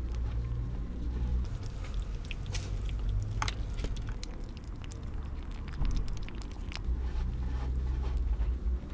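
Kitten chewing wet cat food chunks in gravy: irregular small wet clicks and smacks over a steady low rumble.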